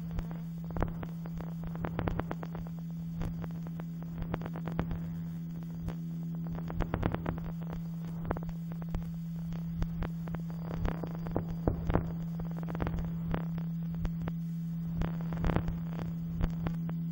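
A steady low drone tone with irregular crackles and clicks scattered through it.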